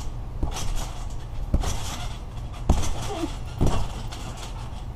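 Feet landing on a trampoline mat: four thumps about a second apart, the last two loudest, over a steady low rumble.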